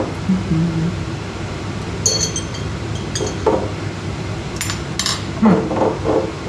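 Kitchen utensils clinking against pots and dishes: a few short, sharp clinks with a bright ring about two and three seconds in, and a knock later on.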